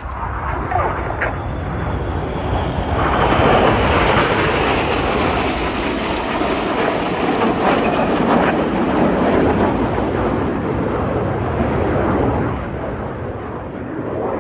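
BAE Hawk T1 jets flying past in formation, their Adour turbofans making a loud rushing jet noise. It builds over the first few seconds, holds loudest through the middle, then fades as they pull away.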